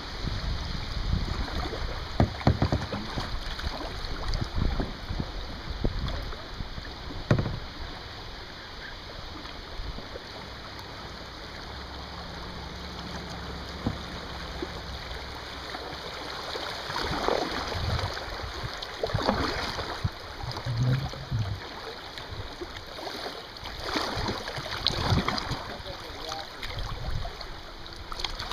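Kayak paddle strokes dipping and splashing over the steady rush of a shallow, rippling river, with a few stronger splashes in the second half.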